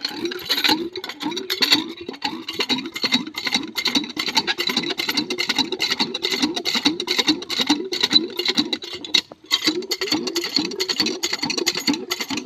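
Water glugging out of a plastic jerrycan, poured into a water pump's pipe to prime it: a fast, even run of gurgles that stops briefly about nine seconds in and then goes on.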